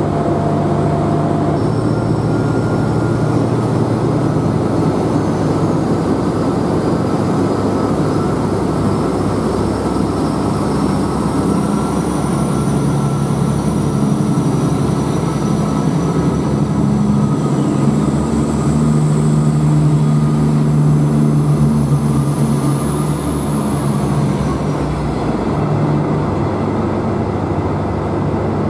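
Renfe Class 599 diesel multiple unit pulling out and accelerating past, its diesel engines running under load with a steady low drone whose pitch shifts in steps, and a faint high whine over it.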